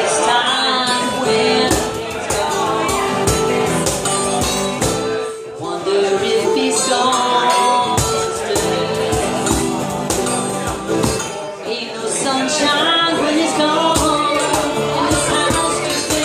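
Live acoustic band music: strummed acoustic guitars with jingling hand percussion and congas, and a woman singing lead.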